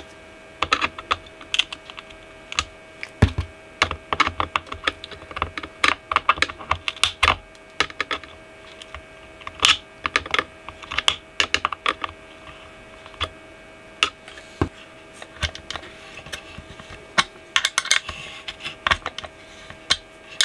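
Pliers clicking and scraping against screw heads and a metal bracket in irregular clusters of sharp taps, breaking off hardened thread lock.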